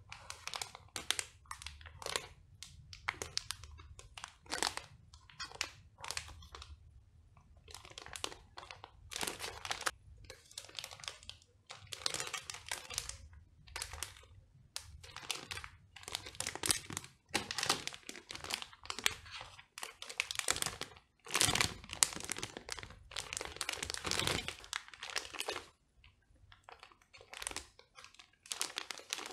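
Clear plastic bags wrapped around plastic model-kit sprues crinkling as they are handled and turned over, in irregular crackly bursts that grow busier in the second half, with a short lull near the end.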